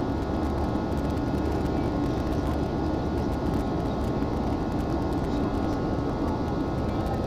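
Steady jet engine and airflow noise heard inside the cabin of an Airbus A320-family airliner climbing after takeoff, with a faint steady whine above the low rumble.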